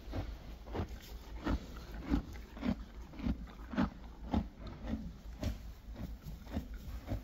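Horse munching hay, a steady crunching chew about twice a second.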